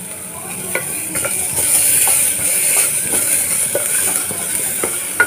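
Chopped garlic and cumin seeds sizzling in hot ghee in a pressure cooker, with a wooden spatula scraping and tapping the pot as it stirs. The sizzle grows louder about a second and a half in.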